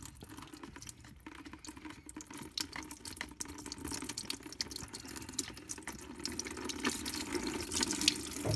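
Antifreeze draining from the loosened plastic drain plug of a BMW E46 coolant expansion tank, splashing into a bucket; the flow grows steadily louder toward the end as the plug opens further.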